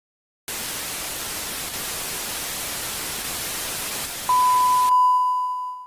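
Intro sound effect: an even television-static hiss, then a steady, high, pure beep that starts over the last of the static. The beep carries on alone for about a second after the static cuts off, then fades out.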